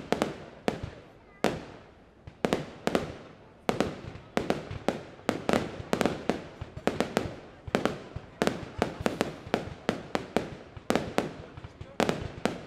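Fireworks display: aerial shells bursting in a rapid, irregular series of sharp bangs, about two to three a second, each trailing off in an echo.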